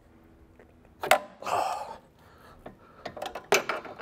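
16 mm wrenches on a rusty sway bar link nut, clicking and clinking as the nut is worked to break it free: a sharp metallic click about a second in, a short scraping rasp, then a run of quick clicks and knocks near the end.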